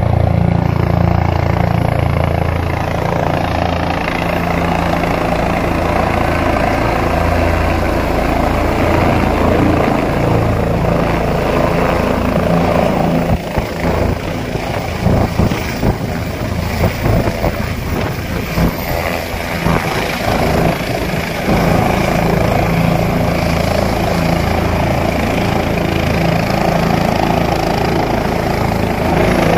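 Single-rotor turbine helicopter running loud and steady as it flies in, sets down on the helipad and keeps running on the pad with its rotors turning. The sound gets choppier in the middle before it evens out again.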